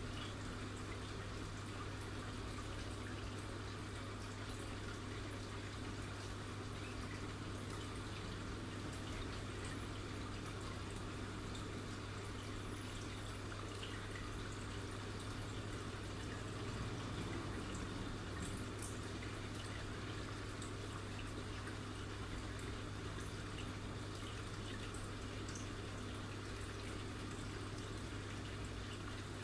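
Aquarium filter and air pump running: a steady low hum with faint trickling, dripping water.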